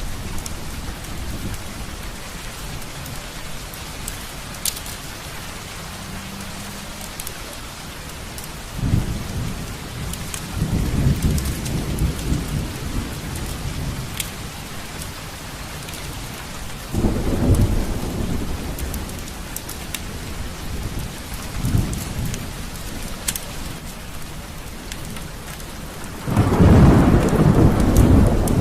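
Steady heavy rain with rolling thunder, rumbling up several times and loudest near the end. Occasional sharp crackles are scattered over the rain.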